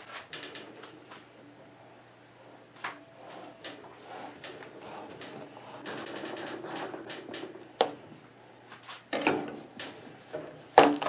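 A large kitchen knife sawing and levering through a pumpkin's rind and flesh on a wooden cutting board, with scattered knocks and scraping. Louder cracking knocks near the end as the two halves are pried apart by hand.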